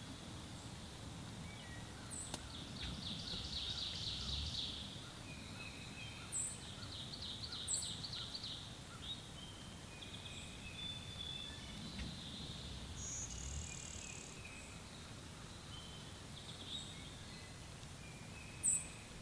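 Woodland songbirds singing: repeated fast, high trills, with short, very high chirps scattered through. The loudest chirp comes near the end.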